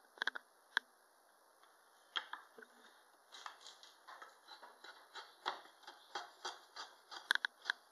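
Drawknife taking quick, short roughing cuts on a wooden spoon blank clamped in a spoon mule: rapid scraping shaves at about three a second from around three seconds in. A few sharp knocks in the first second or two as the blank is set in the clamp.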